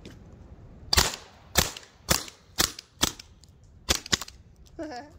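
Byrna TCR less-lethal launcher firing seven quick shots, about half a second apart, with a short pause before the last two.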